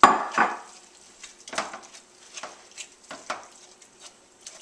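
A utensil scraping and knocking against a frying pan as thick chicken and cream cheese are stirred together. There is one loud scrape right at the start, then short irregular scrapes every half second or so.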